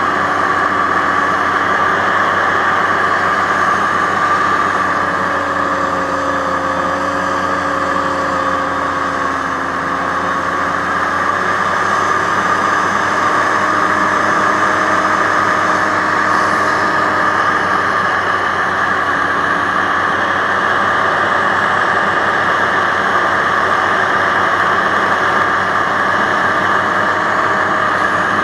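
Aerocruiser SA-1100 hovercraft running steadily across open water: a loud, even drone of its engine and fans, easing slightly about ten seconds in.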